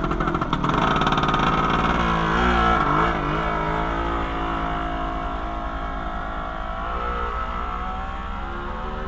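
Small motorcycle engine revving as the bike pulls away, its pitch wavering with the throttle, then a steadier note that fades as it rides off.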